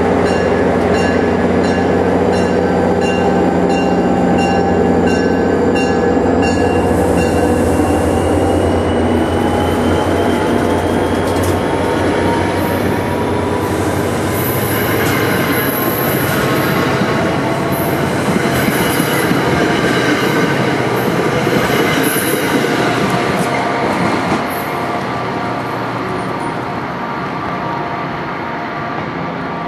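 NJ Transit commuter train of stainless-steel coaches moving past along the station platform: a low drone gives way to a slowly rising whine as the train picks up speed, with wheel squeal and rail clatter. A steady tapping about twice a second stops about seven seconds in.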